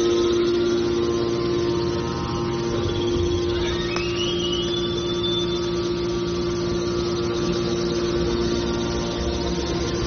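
Electric motors driving the hydraulic pumps of a scrap metal baler, running with a steady hum. A brief rising whine comes about four seconds in.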